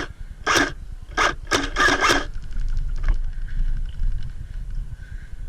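Airsoft electric rifle, an ICS L85 Carbine, firing a string of quick shots, about six in the first two seconds, followed by a fainter fast rattle of fire that stops about three seconds in.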